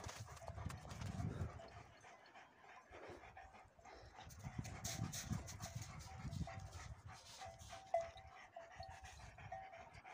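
Footsteps over stony ground with panting breath, and a faint row of short repeated high notes from about halfway on. A sharp knock near the end.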